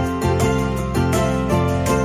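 Instrumental background music with a bass line and notes at an even pace.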